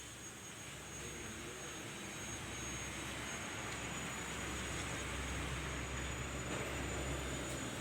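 A steady machine noise with a low hum under it, building over the first few seconds and then holding level.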